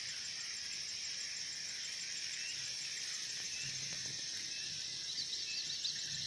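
Steady chorus of insects, a high, even drone with a faint regular pulsing chirp above it. A few faint bird chirps come in around the middle and near the end.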